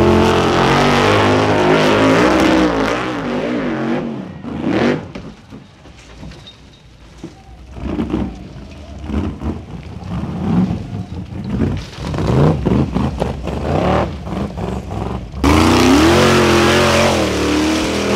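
High-horsepower engines of custom-built Formula Offroad buggies revving hard as they claw up a steep dirt hill. The engines are loud at first, then come in shorter bursts of revving that rise in pitch, and are suddenly loud again near the end as a different car is heard.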